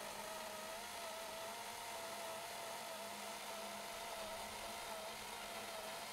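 EGO 56V battery-powered chainsaw cutting through a honey locust hardwood log: a steady electric motor whine with the chain running under load, wavering slightly in pitch.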